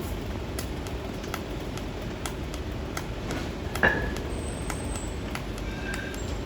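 Steady low background rumble like road traffic, with faint scattered clicks and one sharp clank that rings briefly, about four seconds in.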